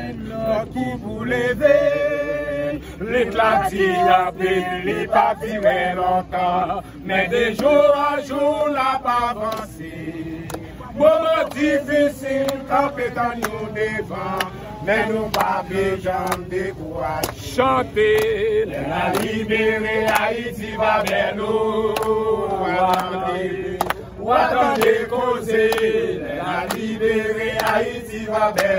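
A group of protesters, mostly men, singing a chant together in unison.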